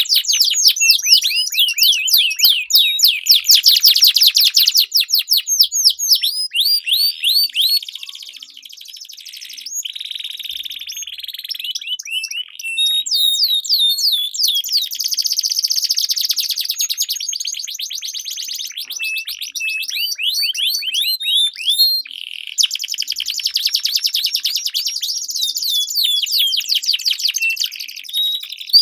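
Domestic canary singing long rolling trills of rapidly repeated high notes, one roll running straight into the next, louder for the first several seconds.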